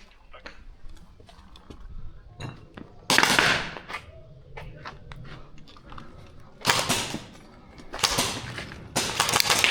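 Scattered airsoft gun shots: sharp, thin clicks and pops going off at irregular intervals. Four louder bursts of rustling noise, each about half a second long, come at about three seconds in, twice around seven to eight seconds, and again near the end.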